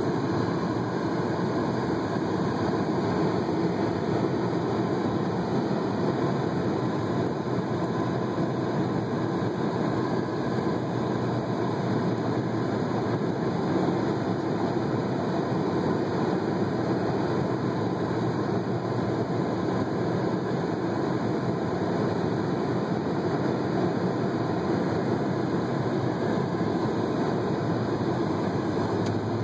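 Steady road and engine noise of a car driving through a traffic circle, heard inside the cabin; an even rumble and hiss that stays level throughout.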